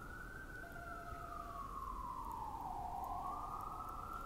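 Emergency-vehicle siren wailing faintly, its pitch rising and falling slowly in one long sweep of about four seconds.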